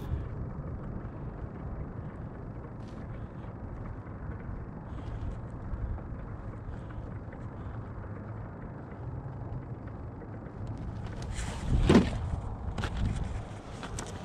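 Steady low rumble of wind on the microphone, with a few faint ticks and a brief louder handling noise near the end.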